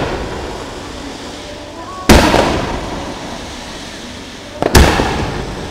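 Aerial firework shells bursting: two sharp bangs, about two seconds in and near the end, each dying away in a long rumble, with the tail of an earlier bang fading at the start.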